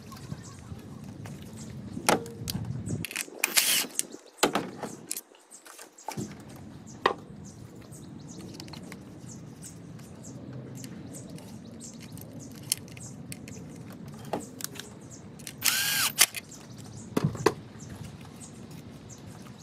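Hand work on an ignition coil of a 2011 Lincoln MKZ Hybrid engine: scattered plastic clicks and knocks as the coil and its connector are handled. Two short, louder scraping bursts come about three and a half and sixteen seconds in.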